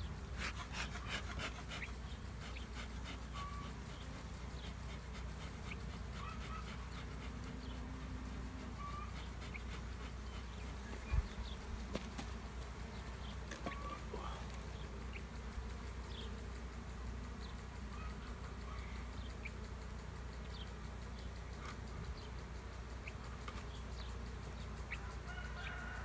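Honeybees buzzing steadily around the hive. A quick run of clicks comes in the first couple of seconds and a single sharp knock about eleven seconds in.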